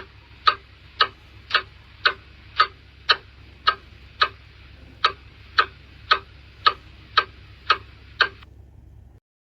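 Antique clock ticking, about two sharp, even ticks a second from its second-hand movement; the ticking stops near the end.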